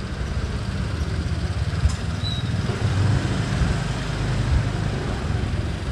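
Motorcycle engine running at low speed, heard from the rider's seat as a steady low rumble, with a brief click about two seconds in.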